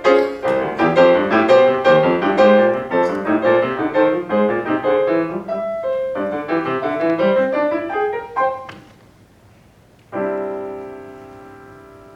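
Solo piano playing a quick passage of running notes that climbs upward at its end. After a short pause, a final chord is struck about ten seconds in and left to ring and fade.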